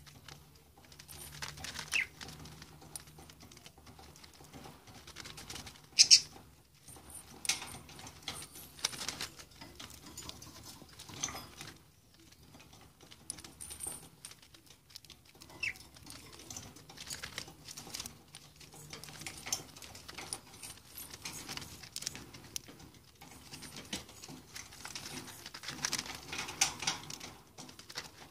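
Budgerigar foraging at a rolling toy: irregular light tapping, clicking and rattling as it pecks at and pushes small clear plastic capsules and seeds across the cage paper, with one sharper knock about six seconds in.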